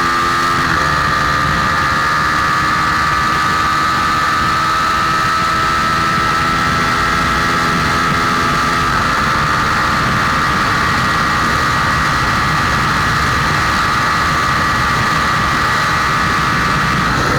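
Honda Tornado motorcycle's single-cylinder four-stroke engine, bored out to 293 cc, running steadily on a ride, its pitch shifting slightly about a second in and again about halfway.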